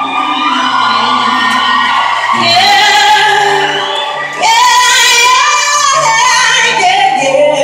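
A female singer performing live, singing long, sliding held notes over low sustained accompaniment notes, heard with the echo of a large hall.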